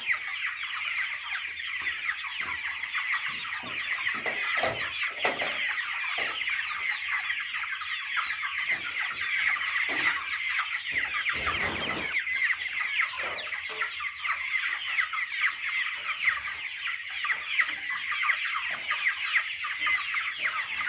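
A large flock of young chickens peeping and clucking continuously, many high chirps overlapping. A brief rush of noise comes about halfway through.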